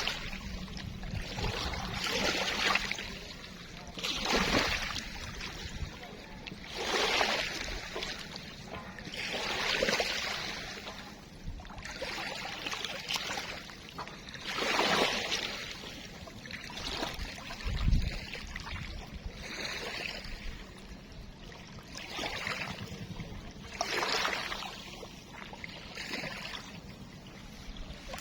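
Kocha River water lapping and splashing in small waves, a wash that swells and fades every two to three seconds over a steady low rumble, with one dull low thump partway through.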